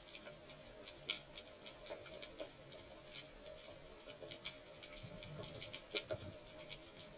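Underwater ambience: a steady crackle of irregular sharp clicks, the sea-floor crackle made by snapping shrimp, heard through the diver's camera housing.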